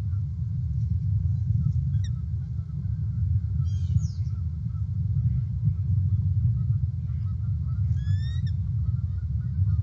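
A steady low rumble on an outdoor nest camera's microphone, with a few short, high bird calls, the clearest about four and eight seconds in.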